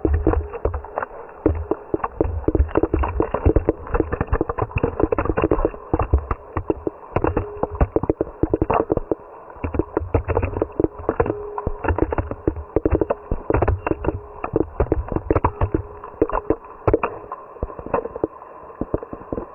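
Rain spilling off a metal awning striking an action camera's waterproof housing: a dense, irregular patter of muffled taps and low thumps.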